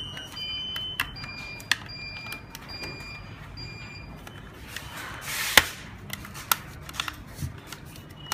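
Plastic clicks and knocks from an alarm panel being handled and opened, with a louder scrape and sharp snap about five and a half seconds in. Short high electronic beeps sound from the panel between the clicks.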